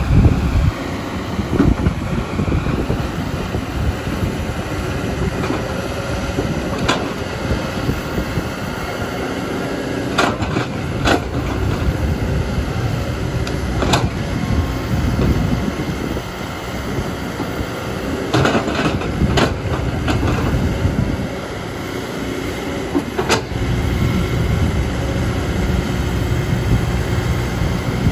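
Kobelco excavator's diesel engine running steadily under work load, with a deep rumble and occasional sharp metallic knocks and clanks, about eight scattered through it.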